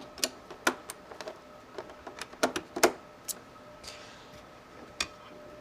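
Scattered light clicks and knocks of a DisplayPort cable's connector being handled and plugged into a computer monitor's port.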